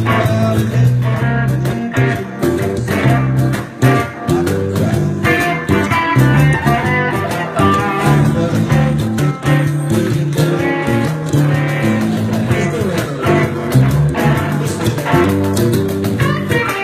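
Live acoustic and electric guitars playing together in an instrumental passage, the electric guitar picking out quick single notes over strummed acoustic chords.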